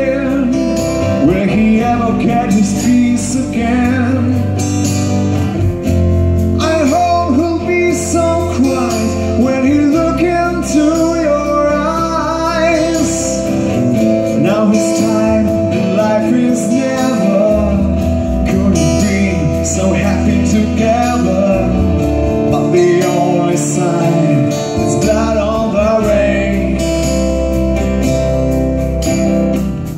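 Live rock band playing an acoustic arrangement: strummed acoustic guitars over bass guitar and drums.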